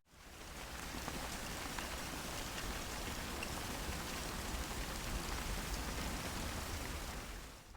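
Steady rain, an even hiss of falling drops. It swells up from silence at the start and fades out near the end.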